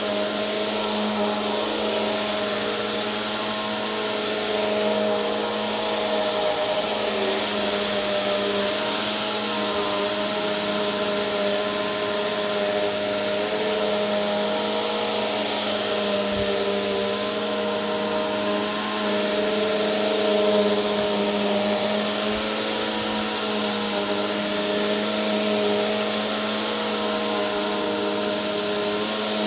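Bissell PowerForce Helix 2191 bagless upright vacuum cleaner running steadily while vacuuming a rug, its motor giving a steady drone with a thin high whine over the rush of air.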